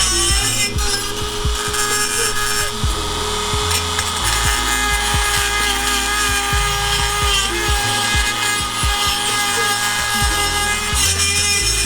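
Dremel 4000 rotary tool with a sanding pad grinding metal, a steady high whine with a rasping grind. It is grinding down the cracked ends of the exhaust so they stop tapping together and rattling.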